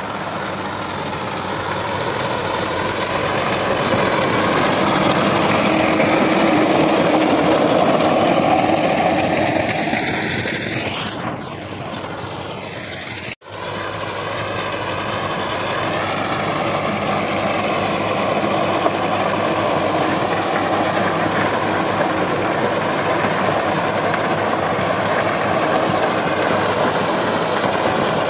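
Sonalika DI 750 tractor's diesel engine running steadily under load while its PTO-driven rotavator tills dry soil. About halfway through the sound fades with a sweeping, whooshing change as the tractor passes, drops out for a split second, then the steady running resumes.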